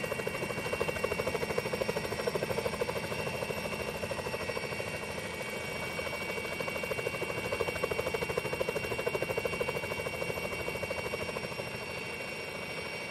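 Steady drone of an aircraft's engines heard from inside the cabin, with a fast even throbbing and a few high whining tones.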